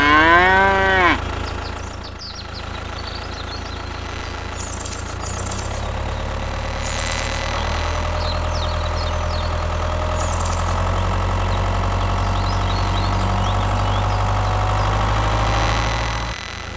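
Tractor engine sound running steadily and growing louder, with a faint whine creeping up in pitch in the second half, and a few short high clicks in the middle. A brief voice-like call rising and falling in pitch opens it, and the engine cuts off suddenly near the end.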